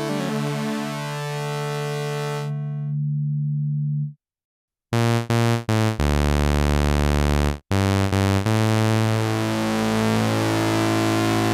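Modal Electronics Cobalt8 virtual analog synthesizer playing demo patches. A held chord's upper notes die away first, and its low note stops about four seconds in. After a short silence, a brighter patch plays a few short stabbing notes, then long held notes whose tone keeps shifting.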